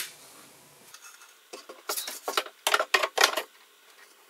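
Plywood drawer being fitted onto steel telescopic drawer slides: a short click at the start, then two runs of metallic clicking and rattling as the slide rails engage and the drawer runs in.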